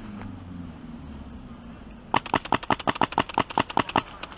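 Airsoft guns firing a rapid string of sharp shots, about eight a second, starting about two seconds in.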